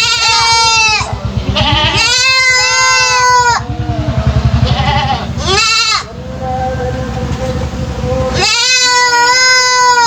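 Young goat kid bleating in an unusual voice that is unlike an ordinary goat's: four loud, drawn-out calls with wavering pitch, the third one short.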